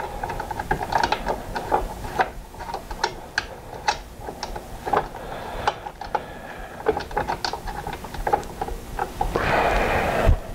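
Irregular small metallic clicks and ticks as the arbor bolt and outer washer are threaded back onto a DeWalt miter saw's arbor by hand, with the blade held still. There is a brief rasping scrape near the end.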